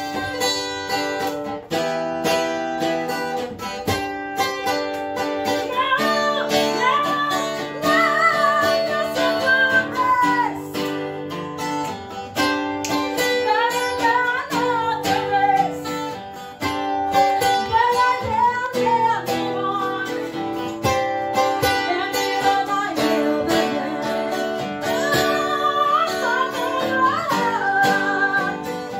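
Strummed acoustic guitar, with a woman's voice singing over it from about six seconds in.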